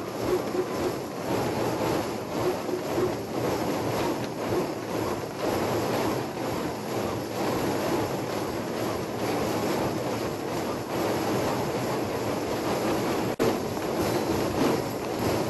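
Thousands of hand drums played at once in a mass drum circle, blending into a dense rumbling wash of strikes with no single beat standing out. It drops out for a split second about 13 seconds in.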